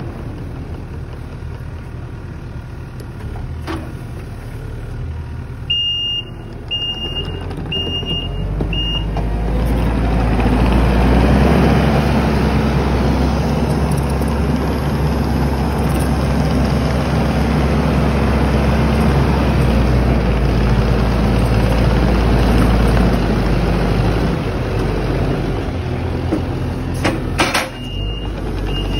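Kubota SVL90 compact track loader's diesel engine running, throttling up about a third of the way in and holding high revs through the middle as it carries a round bale. Its backup alarm beeps four times about a quarter of the way in and again near the end, with a couple of sharp knocks just before.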